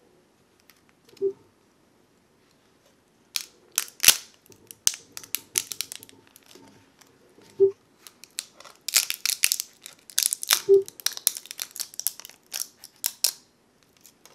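Support material being picked, snapped and peeled off a 3D-printed plastic bust by hand. After about three seconds of near quiet comes a dense run of sharp clicks, cracks and scratchy crackling, the loudest near the start of the run. A few short low-pitched blips fall in between.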